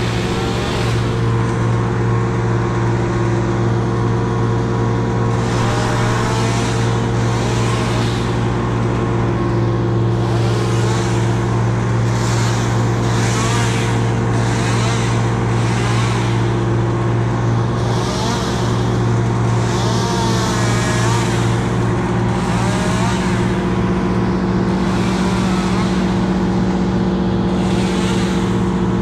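A large engine running steadily at constant speed. Above it, a hiss swells and fades about once a second from about five seconds in.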